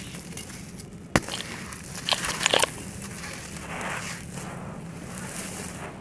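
Dry, gritty lumps of sandy clay crushed and crumbled by hand onto loose dirt: a sharp crack about a second in, a cluster of gritty crackles around two and a half seconds, then a soft hiss of grit pouring down.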